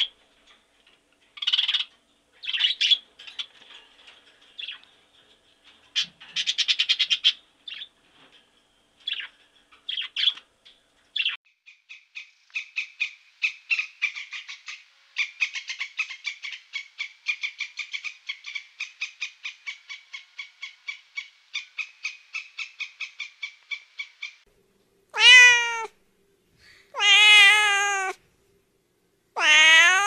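A red-and-green macaw gives scattered short squawks. Then a grey squirrel chatters in a long run of quick pulsed calls, about four a second. Near the end a domestic cat meows three times, each meow rising and falling in pitch.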